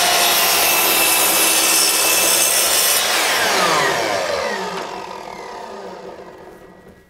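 A Skil 15-amp 10-inch sliding compound miter saw cuts through a wooden board under full power for about three seconds. The blade then leaves the cut and the motor coasts down, its whine falling in pitch and fading away over the last few seconds.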